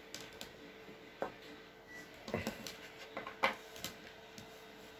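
Faint scattered clicks and scrapes of a trading card being worked into a stiff rigid plastic toploader, the sharpest click about three and a half seconds in.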